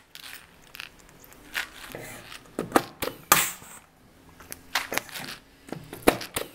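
Pneumatic pop riveter setting rivets through the rivet band of a motorcycle exhaust silencer: a series of sharp clicks and snaps as rivets are pulled and their mandrels break, mixed with knocks of tool handling, the loudest snap a little past the middle.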